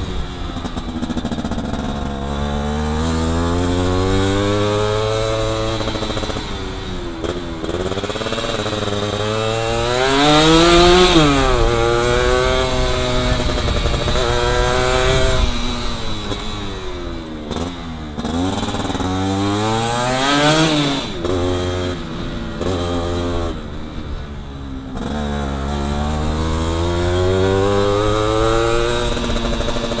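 Yamaha F1Z-R's 110 cc single-cylinder two-stroke engine revving up and dropping back again and again as the motorcycle is ridden through corners. The pitch climbs and falls several times, with the highest, loudest revs about ten and twenty seconds in.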